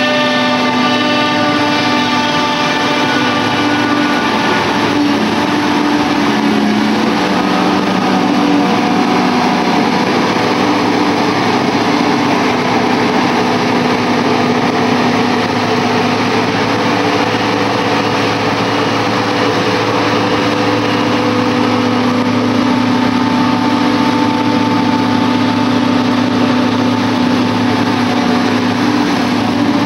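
Self-propelled forage harvester running steadily while chopping grass for silage, with the engine of the John Deere tractor alongside it. A high-pitched whine rides over the low drone for the first few seconds, fades, and comes back fainter near the end.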